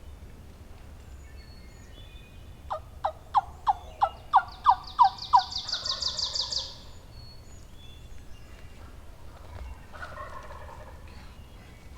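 Wild turkeys: a series of about eight loud yelps, answered straight away by a gobble with a high, fast trill over it. Another fainter gobble sounds near the end.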